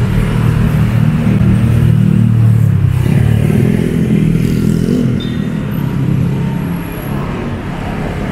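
Street traffic: engines of cars and motorcycles running close by, with a loud low hum that wavers in pitch and eases off after about five seconds.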